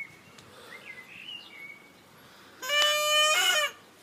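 A single steady horn blast about a second long, starting about two and a half seconds in, with faint bird chirps before it.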